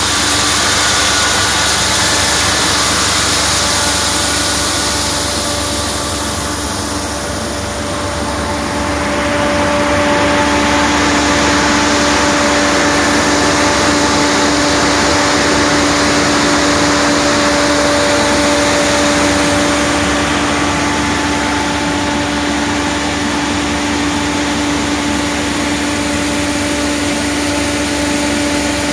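Fan-type snow gun running: a loud, steady rush of its large fan and snow spray with a steady hum beneath it. The sound dips briefly a few seconds in, then comes back up and holds.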